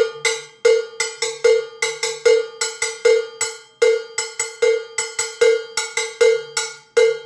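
Handcrafted chrome steel bongo bell, mid pitch, struck with a stick in a steady rhythm of about three to four strokes a second. Each stroke rings with a clear metallic tone, some strokes loud and others lighter.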